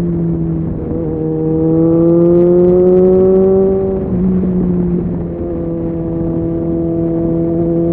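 Suzuki Bandit 650 motorcycle's inline-four engine under way, with wind noise: its pitch climbs from about a second in, drops sharply about four seconds in, then holds and slowly rises again.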